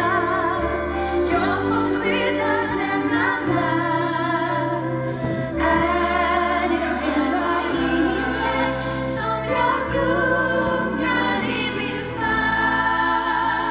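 Live concert music: a female soloist singing a slow carol with wide vibrato, backed by a choir and band, heard from the audience.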